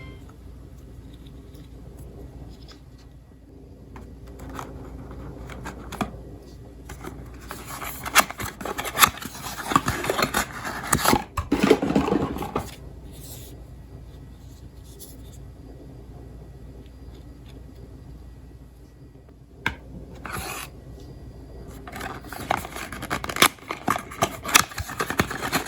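Many glass marbles rolling and clattering along a wooden marble-run track: a rattle of small clicks and rolling rumble that swells twice and eases off in between.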